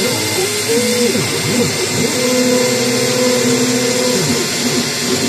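Small CNC router milling a groove in a plastic sheet: the spindle running steadily with the hiss of the cut, over the humming of the drive motors, whose tones step up and down in pitch as the axes change speed and direction.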